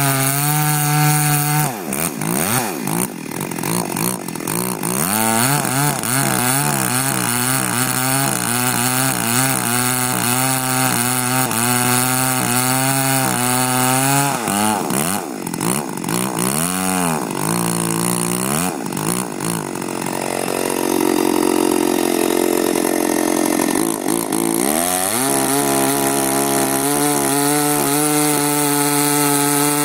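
Stihl 084 two-stroke chainsaw with a 52-inch bar cutting through a large log at full throttle, its engine pitch wavering and dipping under load. In the last few seconds it holds a high, steady pitch.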